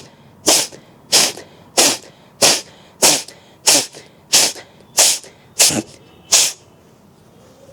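A woman's rapid, forceful exhalations through the nose, eleven sharp hissing puffs at about one and a half a second, stopping a little after six seconds in. She is blowing the leftover water of a nasal rinse out of her nose and sinuses.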